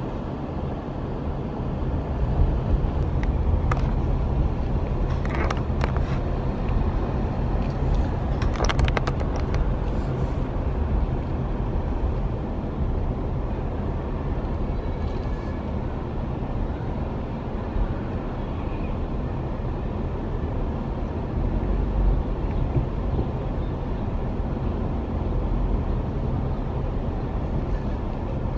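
Car driving along a street, a steady low rumble of engine and road noise, with a few short knocks between about four and ten seconds in.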